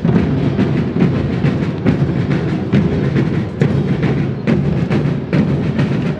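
Parade band music led by drums, beating steadily with many strikes a second.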